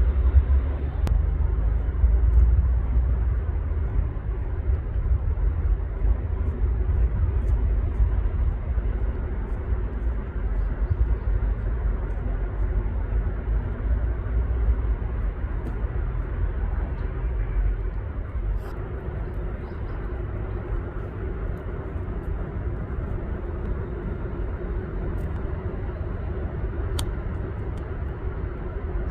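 Steady outdoor ambience: a low rumble with an even hiss over it, a little heavier in the first half, with no clear single event.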